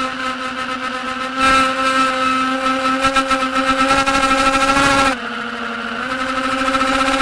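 Diatone Tyrant S FPV quadcopter's brushless motors whining at a steady pitch. From about a second and a half in, the throttle goes up and the whine gets louder, its pitch creeping higher. Just after five seconds the throttle is chopped and the pitch drops briefly, then rises again.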